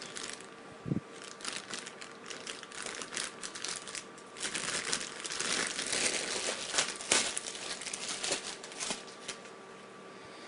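Plastic packaging crinkling and rustling in uneven spells as a wrapped cable is handled and unwrapped, busiest in the middle and dying away near the end, with a soft thump about a second in.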